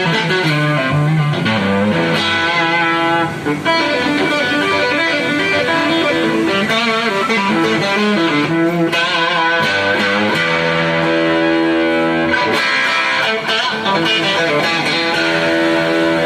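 Global Strat-style electric guitar being played as a tone test after a general setup: lead lines with bent, wavering notes, then held notes left to ring from about ten seconds in.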